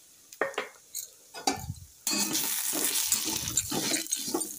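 Spatula stirring and scraping dry vermicelli around a metal kadai with a little hot oil as it fries. A few light knocks come first, then from about two seconds in there is continuous scraping and rustling, stroke after stroke.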